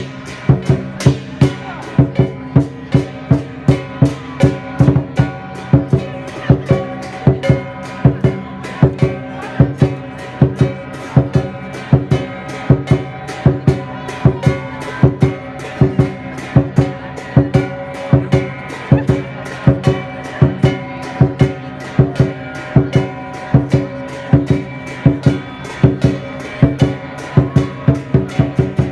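Lion dance percussion: a large drum beating a steady, driving rhythm of sharp strokes, with clashing cymbals and a ringing gong.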